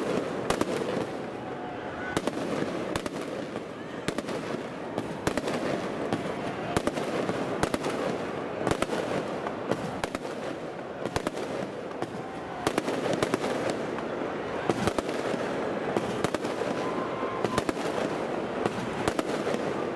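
Aerial fireworks shells bursting close overhead, many sharp bangs in quick succession with no let-up, flash and boom together.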